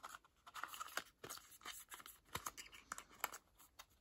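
Faint rustling and scattered clicks of thin card as a small cardboard perfume box and its card insert are handled, a pen-size perfume atomiser fitted back in and the box folded shut.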